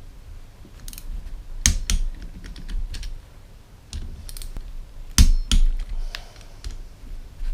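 Click-type torque wrench clicking over as small engine bolts reach their 10 newton-metre setting: two pairs of sharp clicks, with quieter ratchet clicks and metal tool handling between.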